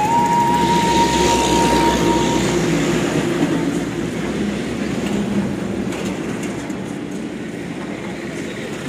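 Steady rumble and hiss of a passing vehicle, with a single high whistle-like tone held for about the first two seconds; the rumble grows quieter in the second half.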